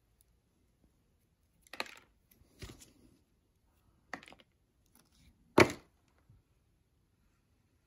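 Four short knocks and clicks from handling small metal circle cutters against a leather-hard clay cylinder and its wooden board, scattered over a few seconds, with the last knock much the loudest.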